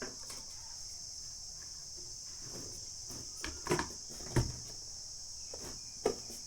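Steady high chirring of crickets in the background. A few light knocks and clicks come around the middle and again near the end, from the circuit board being handled on the bench; the knock a little past the middle is the loudest.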